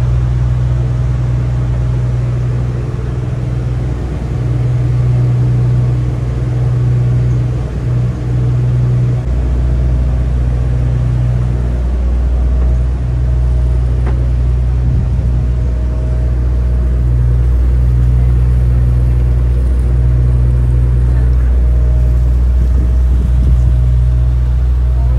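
Ship's engine droning steadily, heard aboard the vessel: a deep, continuous hum with a few steady tones above it. The deepest part of the drone grows louder about nine seconds in.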